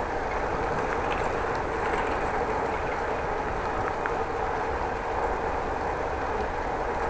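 Steady rushing noise of a bicycle ridden at speed on asphalt, heard through a chest-mounted action camera: wind on the microphone mixed with the tyres rolling.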